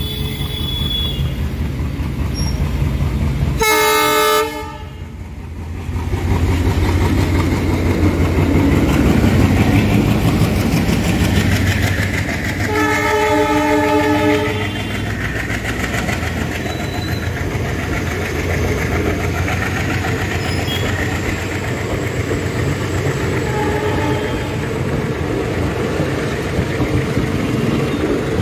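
Indian Railways diesel locomotive sounding its horn twice, a short blast about four seconds in and a longer one about thirteen seconds in, as it runs through a level crossing. Then comes the steady rumble and clatter of a long rake of passenger coaches rolling past close by.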